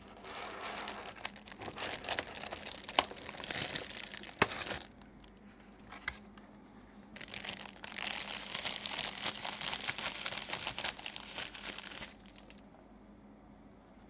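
Clear plastic bag crinkling as a keyboard is handled and slid out of it: two long stretches of crinkling with a few sharp crackles, the second beginning about seven seconds in and stopping about two seconds before the end.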